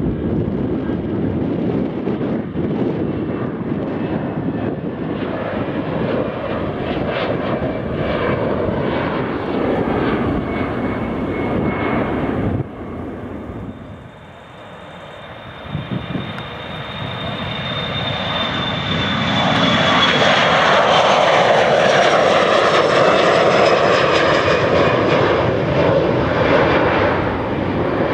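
Airbus A320 jet engines (CFM56) at take-off power during the take-off roll, a steady loud rumble. After a sudden cut about twelve seconds in, a Boeing 737-500's jet engines swell from distant to loud as it takes off and passes, with a high whine slowly falling in pitch.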